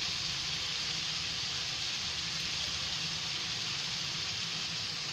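Chopped vegetables sizzling steadily as they fry in a steel kadhai.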